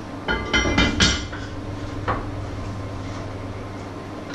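Heavy lid of a red enamelled pot set down onto the pot on the stove, clattering and ringing several times in quick succession about a second in, with one more knock about two seconds in. A steady low hum runs underneath.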